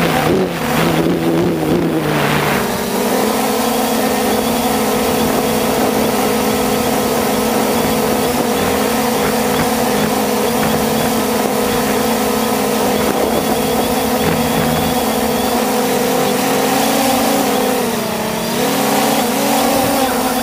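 3DR Solo quadcopter's electric motors and propellers droning steadily, heard from its onboard camera. The pitch steps up about two seconds in, then dips briefly and comes back up near the end as the drone changes speed.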